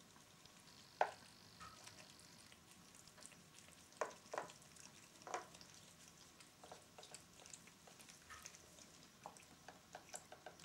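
Faint small splashes and taps of water in a plastic tub: one sharp one about a second in, three more around four to five seconds in, then lighter ticking plinks.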